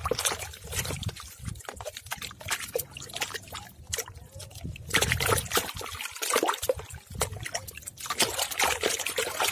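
Muddy water sloshing and splashing in a tub as a hand scrubs a plastic action figure under the surface, in quick irregular splashes, with a louder stretch about five seconds in.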